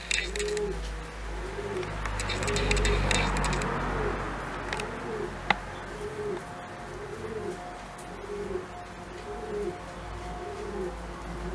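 Pigeon cooing: a short rising-and-falling note repeated about once a second, with bursts of crackling in the first few seconds.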